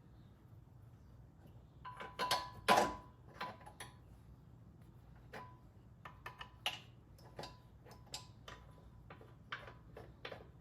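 Hand tools working on metal suspension parts: a cluster of louder metallic knocks about two seconds in, then a run of sharp, irregularly spaced clicks and taps.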